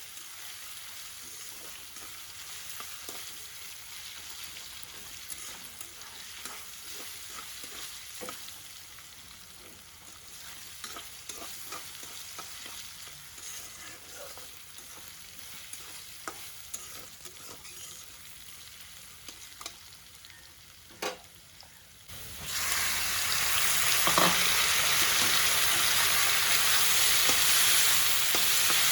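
Food frying in a pan with a soft sizzle and scattered clicks and scrapes of a utensil stirring; well past halfway a much louder, steady sizzle starts suddenly and keeps going.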